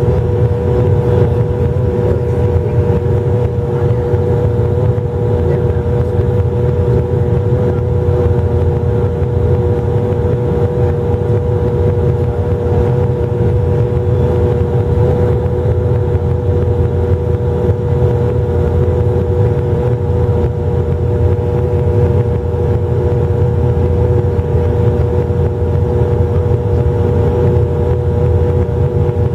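Cabin noise of a Bombardier Q400 turboprop airliner: the twin Pratt & Whitney PW150A engines and propellers droning steadily, with a constant hum tone on top. The aircraft is on approach with its landing gear down.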